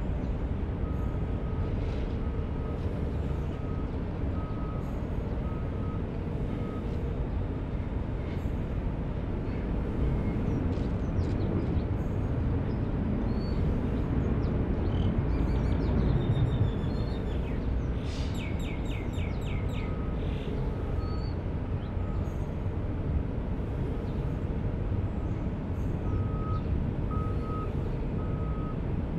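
Low steady rumble of jet aircraft at an airport, swelling for a few seconds midway. A high beep repeats evenly, about once a second, near the start and again near the end, and birds chirp in the middle.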